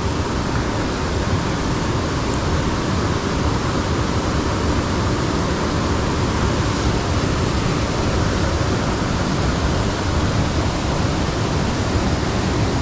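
Steady rushing of running water in a small irrigation ditch, an even hiss with no breaks.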